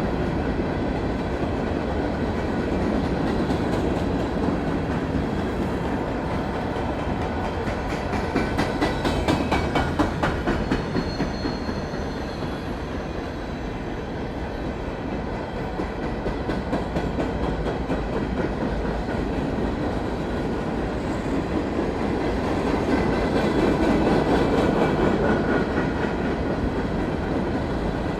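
An empty CSX coal train passing at about 50 mph, a continuous rumble of steel wheels on rail. A run of rapid, regular wheel clicks over the rail joints is loudest about a third of the way in.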